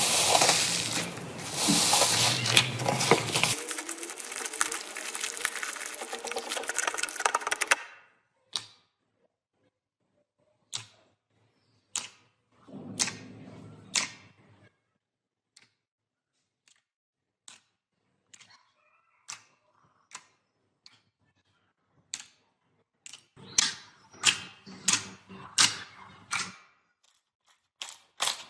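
Slime being squished and pressed by hand: dense crackling for several seconds, then a run of sharp separate clicks and pops with short near-silent gaps, and a quicker flurry of pops near the end.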